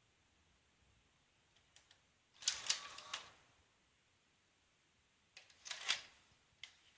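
Panasonic NV-HS950 VCR's tape mechanism clicking and whirring in two short bursts, about a second long each, with a few single clicks around them. The machine has an F05 fault: the tape won't start or eject.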